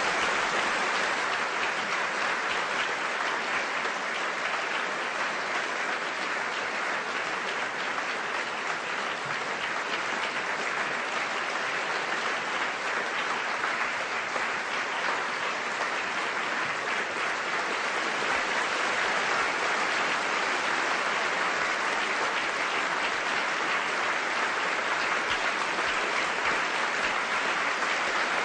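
Large audience applauding: dense, sustained clapping.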